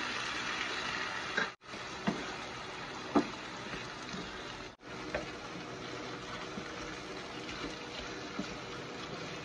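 Chicken chop suey simmering in a wok with its sauce and added water: a steady sizzling, bubbling hiss. A utensil stirring clicks against the pan a few times, and the sound cuts out briefly twice.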